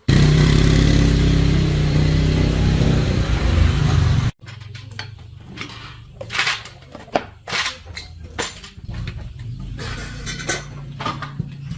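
A small petrol engine running steadily for about four seconds, then cut off abruptly, followed by scattered clinks and knocks.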